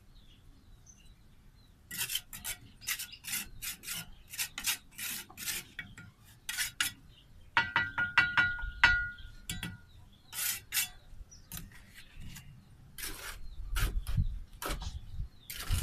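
Bricklayer's steel trowel scraping and spreading cement mortar on bricks in short strokes, two or three a second. About halfway through comes a quick run of ringing metallic taps, and near the end low thuds as mortar is scooped from the metal pan and bricks are set.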